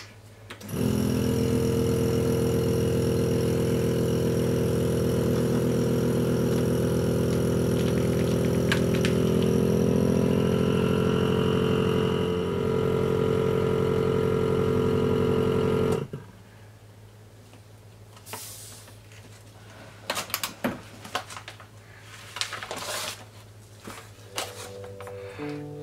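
Lava V100 vacuum sealer's pump running steadily for about fifteen seconds as it draws the air out of the bag, then stopping suddenly. Soft clicks and plastic rustling follow as the lid is opened and the vacuum-packed bag is lifted out.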